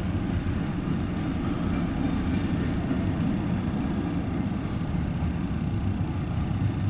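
Norfolk Southern intermodal freight train rolling past, a steady low rumble.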